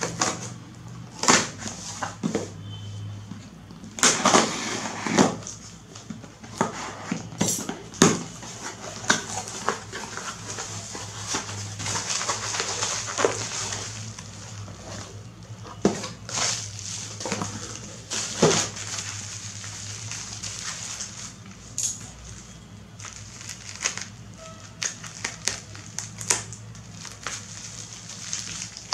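A cardboard parcel being cut open and unpacked by hand: packing tape slit with a blade, cardboard flaps scraped and knocked, and a plastic courier pouch with bubble wrap crinkling as it is lifted out. There are irregular clicks and knocks throughout, and scissors start on the plastic near the end.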